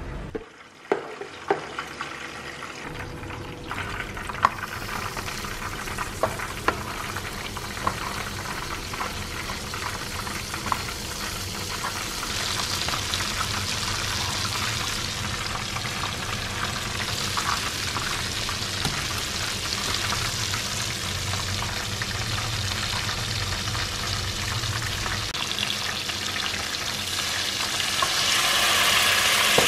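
Butter sizzling as it melts and foams in a hot frying pan, with a few sharp ticks in the first several seconds. Near the end the sizzling grows louder as vinegar is poured into the melted butter.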